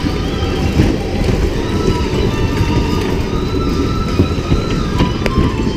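Electric bumper car driving across the arena floor: a steady, loud rolling rumble.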